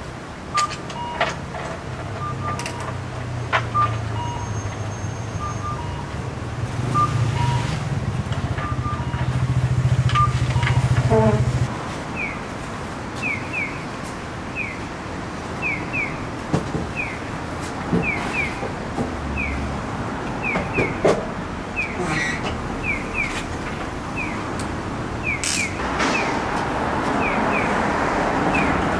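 Clear vinyl sheeting crinkling and rustling as it is unfolded and hung, over steady street traffic. A low hum stops about twelve seconds in, and a string of short high chirps, often in pairs, follows.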